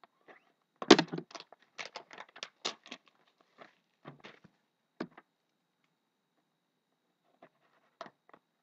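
A sealed hockey-card box being torn open: a quick run of tearing and crinkling of the wrapper and cardboard, loudest about a second in, then a few scattered rustles and clicks.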